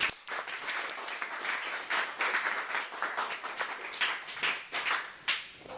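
Audience applauding, starting suddenly and dying away near the end with a few last single claps.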